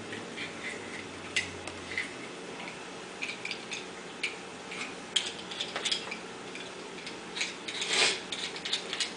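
Sausage and onion frying in a pan, giving irregular light pops and clicks, several a second at times, with a louder clack about eight seconds in.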